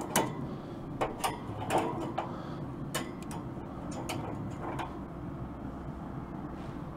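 Long metal barbecue tongs clicking and clinking against the stainless-steel grate of a Moesta Sheriff pellet smoker as racks of ribs are set down, with about nine sharp clicks spread over the first five seconds.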